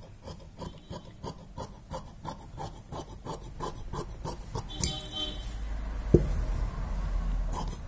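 Steel tailor's shears snipping through cotton blouse fabric in quick, even strokes, about four a second. About five seconds in there is a metallic clink, then a sharp knock, and the cloth is handled on the table.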